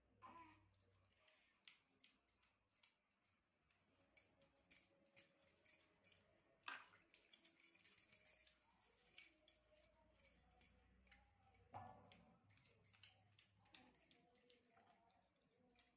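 Near silence with faint wet rubbing and light clicks from oily hands massaging a baby's skin, and bangles clinking now and then; two sharper taps, one near the middle and one about three quarters in.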